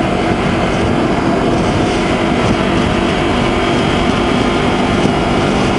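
Honda CBR250RR's parallel-twin engine running at a steady pitch, with a loud even rush of wind over it.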